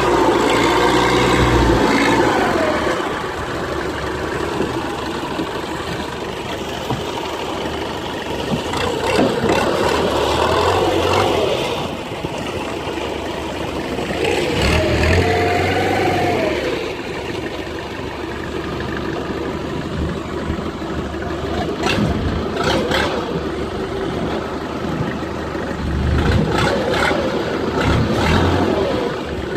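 Small fishing boat's engine running, its pitch rising and falling in several revs as the throttle is opened and eased off, with a few sharp knocks late on.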